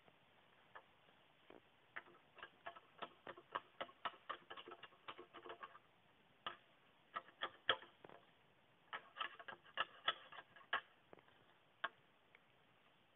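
Quick irregular runs of sharp, dry clicks and cracks in three bursts, from dry bamboo and bamboo-leaf litter being handled and trodden on.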